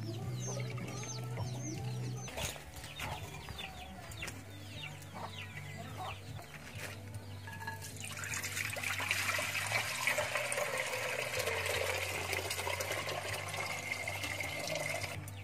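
Chickens calling with short high falling chirps in the first few seconds. Then, from about halfway, a steady rushing splash of coconut milk poured from a plastic tub into a metal cooking pot.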